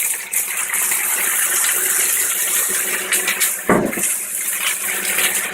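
Water poured into a hot pan of frying dry tofu slices, gushing and sizzling steadily, with a single knock a bit over halfway through.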